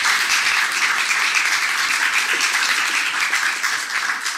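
A group of people applauding, many hands clapping together at once; the applause holds steady and then begins to die away near the end.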